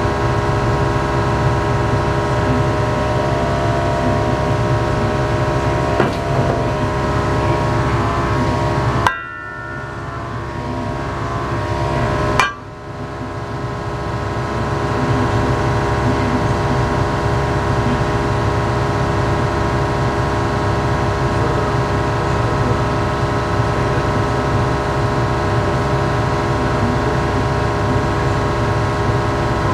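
Steady roar of a kitchen gas burner heating an iron frying pan, with a hum of several steady tones through it. Two sharp knocks come a few seconds apart near the middle, about when oil goes into the pan.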